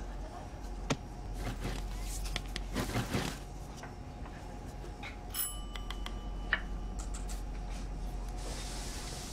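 Diner kitchen ambience: scattered clatter and knocks over a low hum, and about five seconds in a single bright bell ding that rings for about a second. A soft hiss comes in near the end.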